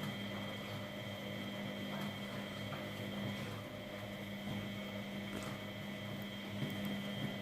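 Miele W833 washing machine running, its motor giving a steady hum with a thin, even high whine and no pauses.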